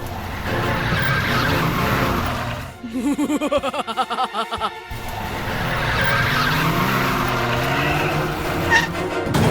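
Cartoon vehicle sound effects: an engine running with tyre skidding. In the middle it is broken by about two seconds of fast, pulsing warble. It then returns with the revs rising.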